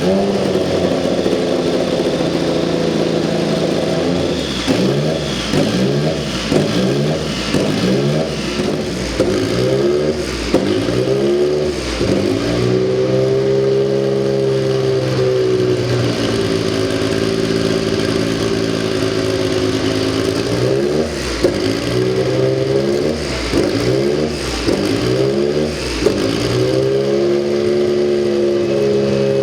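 Porsche 962 Group C race car's twin-turbocharged flat-six engine revving, its pitch rising and falling again and again, with stretches held at steady revs in between.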